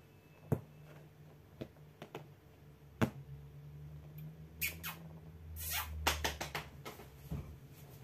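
A house cat moving right up against the microphone: a few faint taps and clicks, then a short run of rustling about halfway through, over a low steady hum.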